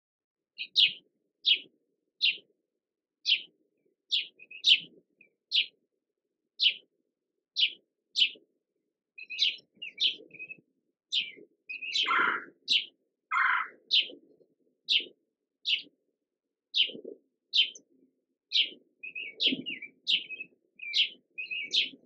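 Rose-breasted grosbeak giving sharp, squeaky call notes, repeated about once a second, with two longer falling notes about halfway through.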